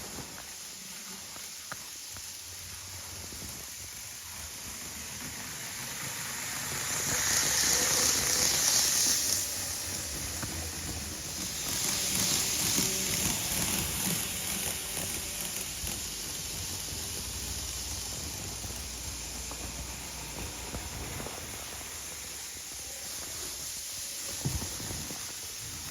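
Two loud hissing rushes from a train, each two to three seconds long and a few seconds apart, over a low rumble.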